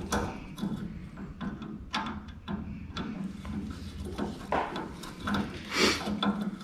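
Scattered small clicks, taps and scrapes of hand tools working on metal parts, over a steady low hum.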